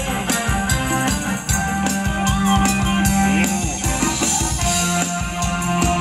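Live band playing upbeat Thai ramwong dance music, with a steady drum beat over a held bass line.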